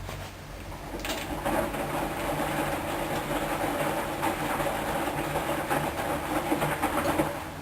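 Hoover DYN 10124 DP front-loading washing machine running, a rattling, clattering mechanical sound over a steady hum. It starts about a second in and stops abruptly near the end.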